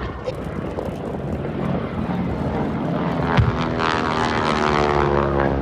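Propeller airplane flying past. Its engine note swells about three seconds in, then drops steadily in pitch as it goes by.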